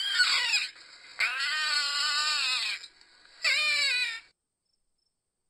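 Otter calling: three high-pitched squeals, the middle one held for about a second and a half.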